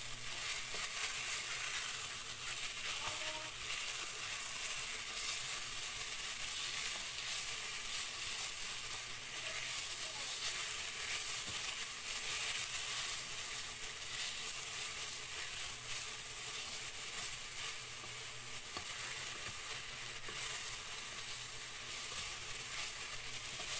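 Ground meat, diced onions and potatoes frying in oil in a pan, giving a steady sizzle, with a spatula stirring and scraping through the mixture.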